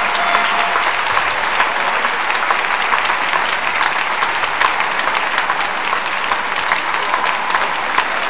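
Crowd applauding steadily, many hand claps blending together.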